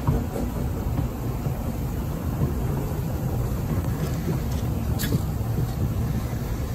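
Steady low rumble of a narrow-gauge train on the move, with a sharp click at the start and another about five seconds in.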